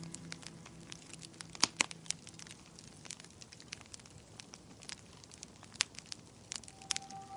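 Wood fire crackling in a fireplace: irregular sharp pops and snaps, with two loud pops close together about a second and a half in and another near the six-second mark.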